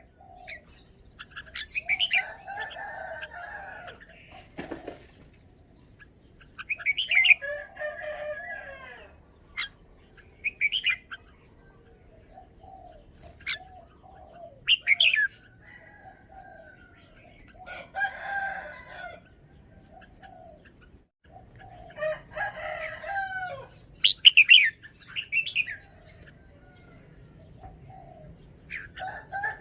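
Red-whiskered bulbul singing: short, bright, warbled phrases with sharp high notes, repeated every few seconds with pauses between.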